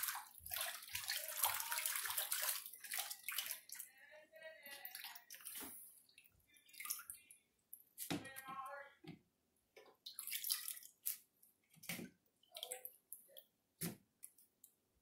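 Water splashing as hands swish amaranth leaves in a stainless steel bowl of water, dense for the first few seconds. After that come scattered short splashes, drips and rustles as the wet leaves are lifted out into a plastic colander.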